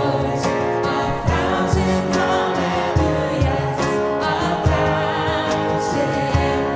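Gospel worship music: a choir singing over a band with a steady drum beat.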